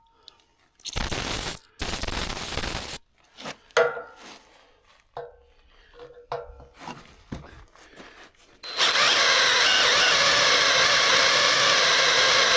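Power drill boring a hole through the steel sawmill track with a Milwaukee bit: two short runs about a second in, a few light knocks, then a steady drilling run from about three-quarters of the way in.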